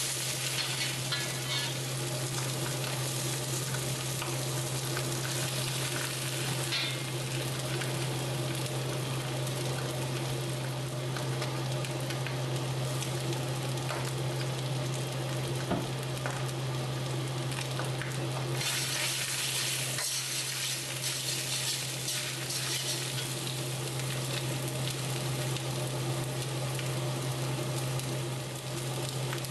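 Egg, onion and rice sizzling in a hot wok as a metal wok ladle stirs and scrapes through them, over a steady low hum. The sizzle flares louder at the start and again about two-thirds of the way through.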